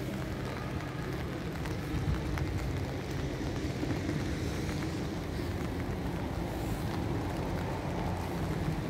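Steady city background noise: a low, even hum of traffic with no distinct events.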